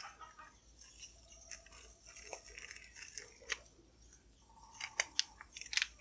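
Cleaver cutting a bunch of scallions on a wooden chopping board: a few scattered sharp knocks and crisp crunches, several in quick succession near the end.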